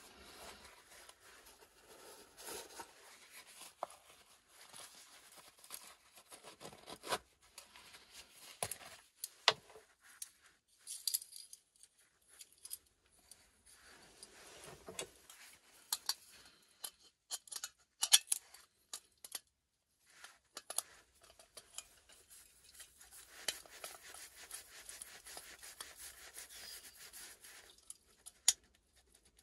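Camping gear being handled on a wooden shelf: soft rustling of packets with scattered clicks and light metal clinks, the sharpest a few single taps.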